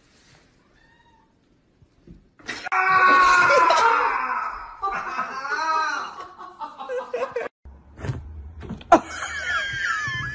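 A cat yowling in long, wavering cries, loud from about two seconds in. After a sudden break near eight seconds, more high cries come over a low hum.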